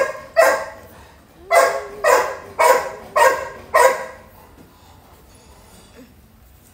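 Newborn puppy yelping as it is picked up and held: about six short yelps in the first four seconds, with a faint whine under the middle ones.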